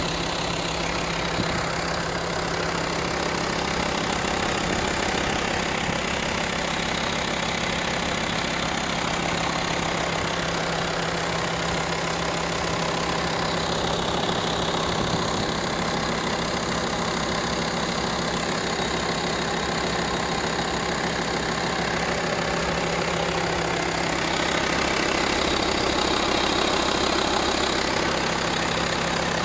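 2008 VW Touareg's 2.5 TDI (BPE) inline five-cylinder diesel engine idling steadily, heard from over the open bonnet.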